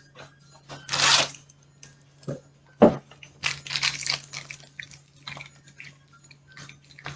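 Handling noises from cleaning out a fridge: short rustling or scraping bursts, the strongest about a second in and a cluster around four seconds, with a sharp knock near three seconds. A steady low hum runs underneath.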